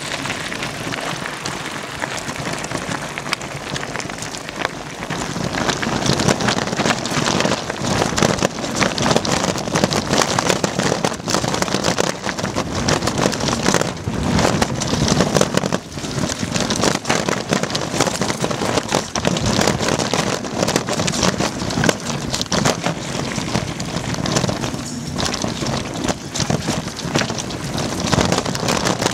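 Mountain bike descending a rough trail: a continuous crunching, rattling clatter of tyres over gravel, stones and roots, with the bike shaking, heard close up from a camera riding on the bike or rider. The clatter grows louder and rougher about five seconds in.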